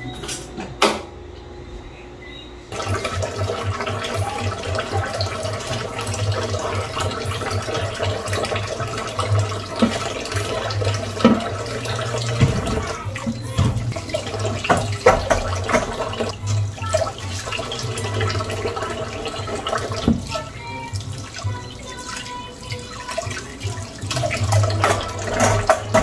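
Kitchen tap running into a stainless steel sink while dishes and utensils are rinsed under it, with scattered clinks and knocks of the items. The water comes on about three seconds in and runs steadily.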